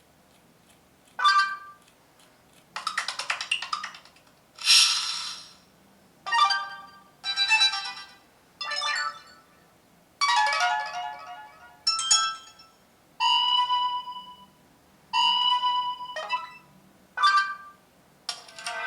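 HTC Dream (T-Mobile G1) stock ringtone and notification sounds played one after another: about a dozen short chimes and melodic tones, each about a second long, with short silent gaps between them.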